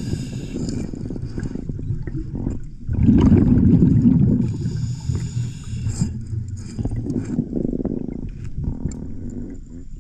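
Scuba regulator breathing, heard underwater: a hissing inhalation, then a loud gurgling rush of exhaled bubbles about three seconds in, then another hissing inhalation about five seconds in.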